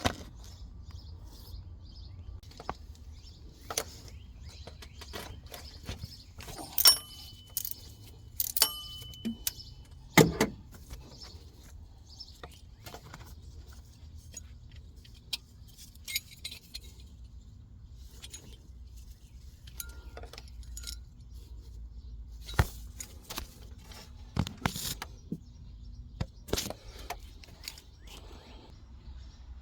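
Metal tools and engine parts clinking and clicking at irregular intervals during the teardown of a Ford 3.0L EcoBoost engine, with a few louder clanks about a third of the way in, two of them ringing briefly. A faint low hum runs underneath.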